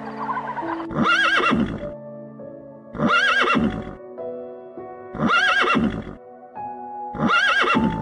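The same animal call, about a second long, repeated four times roughly two seconds apart over background music with sustained notes.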